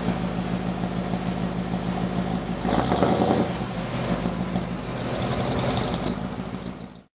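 A 1949 Ford's overhauled stock flathead engine running at a steady idle, with a brief louder burst from the exhaust about three seconds in and a smaller swell near the end before it fades out.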